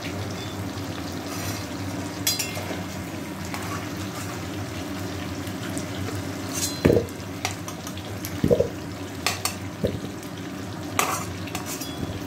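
Potato chunks sizzling steadily as they fry in oil in a metal kadai. A flat metal spatula scrapes the pan and knocks against it a few times as the potatoes are turned, loudest about seven and eight and a half seconds in.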